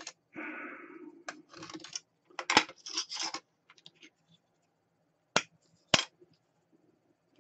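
A hobby knife scoring an embossed plastic brick sheet along a steel ruler in several scratchy strokes. Near the end come two sharp snaps about half a second apart as the scored sheet breaks along the cuts.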